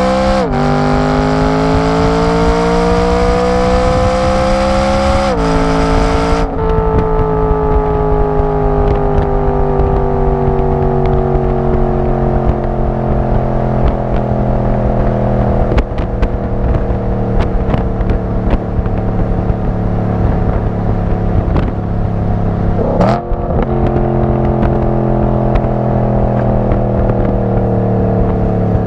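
Exhaust of a 2011 BMW M3 E92's V8 through a GT HAUS Meisterschaft GT2 exhaust, recorded at the tailpipes while driving. The revs climb hard and drop sharply twice early on, at gear changes under full throttle. The throttle then comes off and the note falls slowly as the car slows, with a quick dip and jump in revs near the end.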